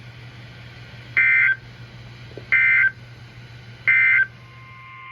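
EAS SAME digital data bursts: three short warbling bursts, each under half a second and about 1.3 s apart. These form the end-of-message (NNNN) code that closes an emergency alert, heard over a steady low radio hum. Faint steady tones start near the end.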